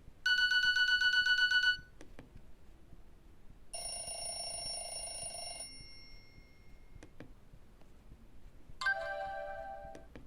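Nokia E65 mobile phone speaker playing three short ringtone snippets one after another: first a fast pulsing beep, then a steady electronic chime, then a brief tone near the end that fades out. Faint clicks fall between the snippets.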